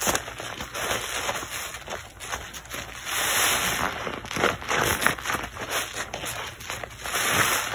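A soap-loaded sponge squeezed and kneaded by rubber-gloved hands: wet squelching and crackling of thick lather, coming in uneven surges.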